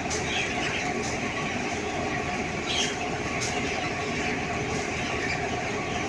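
Steady mechanical drone of a broiler chicken house with a large flock of broiler chickens chirping over it, and a few sharp ticks now and then.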